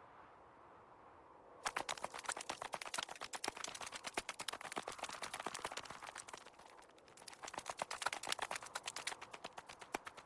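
Rapid, dense ticking of many tiny footsteps as a column of cartoon ants scurries across snow. It starts about two seconds in, thins out briefly around the middle, then picks up again.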